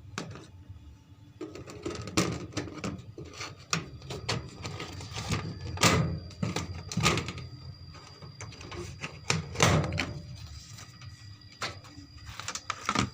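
Irregular clicks, knocks and clinks of tools and small metal parts being handled during work on a washing machine.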